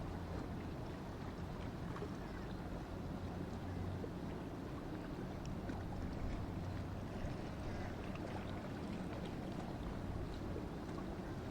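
Boat engines running steadily as a low hum, mixed with wind and water noise.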